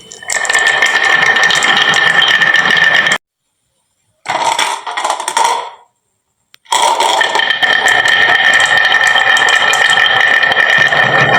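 Many marbles rolling and clattering down a wooden marble-run slope: a dense, continuous rattle of clicks with a steady ringing tone underneath. The sound cuts off abruptly to silence twice and comes back.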